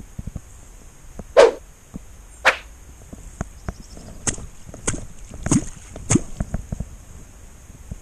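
Catfish clonk struck on the water surface to call catfish: two strong, sharp strikes about a second apart, then a run of lighter strikes.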